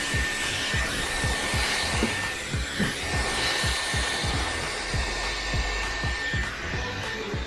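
Dyson Airwrap with its blow-dry attachment running on hair: a strong rush of air under a thin, steady high whine from the motor.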